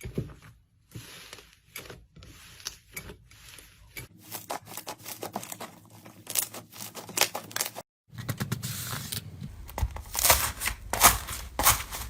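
Slime being squeezed, stretched and pulled apart, giving dense runs of crackling pops and tearing sounds. The sound changes abruptly about four and eight seconds in.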